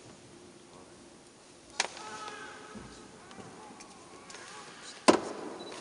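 Two sharp knocks, one nearly two seconds in and a louder one about five seconds in, each ringing briefly in a reverberant church, with faint, distant speech between them.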